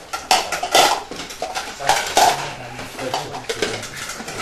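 Black baru alms bowls (the nested Buddhist monastic bowl sets) clattering and knocking together as a group of people wipe them with cloths and stack them after the formal monastic meal. A steady run of irregular knocks, with several louder clatters.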